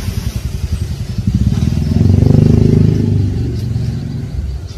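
Engine of a passing motor vehicle, swelling to a peak about two seconds in and then fading.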